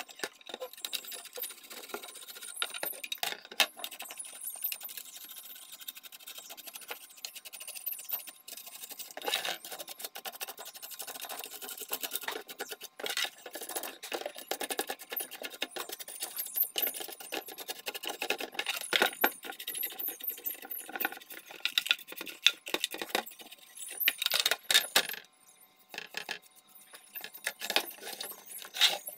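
Cotton wool and a small brush scrubbing and wiping the plastic base and metal bracket of an electronic scale, a steady scratchy rubbing broken by frequent light taps and clinks as the parts are handled.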